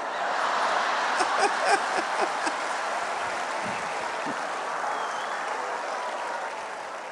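Audience applauding and laughing, the noise fading gradually.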